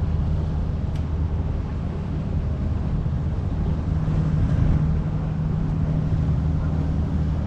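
Small fishing boat's engine running steadily, a low hum that grows a little stronger about four seconds in.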